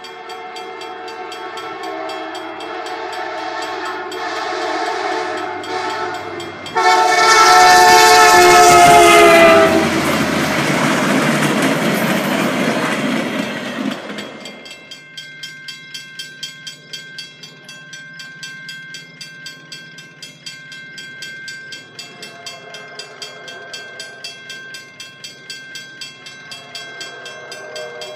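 VIA Rail passenger train blowing its horn chord while approaching a level crossing, loudest about a third of the way in, where the pitch drops as the train passes, followed by the rush of the train going by. After it passes, the crossing bell dings about twice a second, with the horn faint in the distance.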